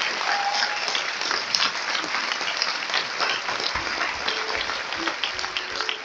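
Audience applauding: many hands clapping steadily at an even level.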